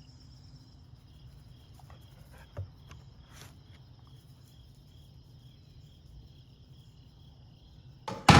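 Insects chirping steadily in a regular pulse of about two to three chirps a second over a low steady hum, with a few faint clicks. A sudden loud knock comes at the very end.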